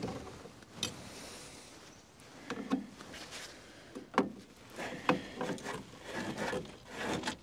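Scattered metal clicks, clinks and scrapes of pliers working on a drum brake, as the brake shoes and their return springs are worked loose from the backplate.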